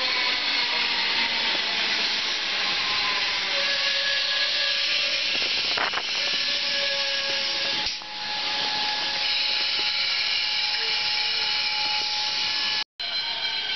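Siemens suburban electric train moving past close by: a loud, steady rush of wheel-on-rail noise with several whining tones from its traction equipment. It cuts out for a moment near the end.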